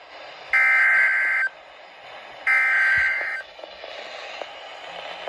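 Emergency Alert System SAME header: two bursts of digital data tones, each just under a second long and about a second apart, with faint radio hiss between them. These are the last two of the three repeats of the coded header that announces a severe thunderstorm warning.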